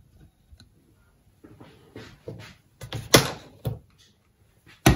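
White plastic conduit and a conduit junction box being handled on a wooden worktop: a run of light knocks and clicks of plastic, the sharpest about three seconds in and another sharp one near the end.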